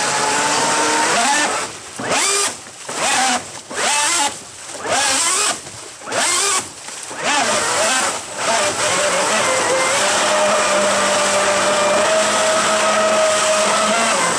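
Electric jet-drive unit for an e-surfboard, a brushless motor spinning a water-jet impeller, running in a test tub of water. The throttle is blipped about half a dozen times, the motor whine rising and falling with each surge over the churning water. From about halfway through it is held at a steady high speed.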